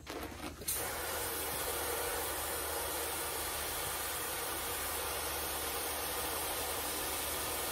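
Garden hose spray nozzle switched on about a second in, water hissing steadily as it pours into the top watering reservoir of a tiered plastic planter.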